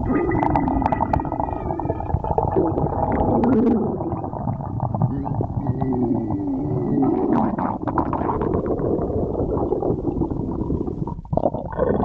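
A person's stomach growling: a continuous run of gurgles and wavering, squeaky growls that rise and fall in pitch, dropping out briefly near the end. Hunger rumbling of the gut.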